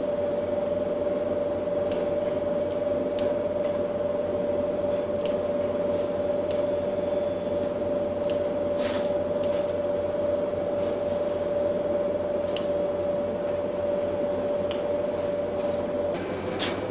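Steady hum of laboratory equipment with a steady mid-pitched whine that cuts off near the end, and a few faint, light clicks scattered through.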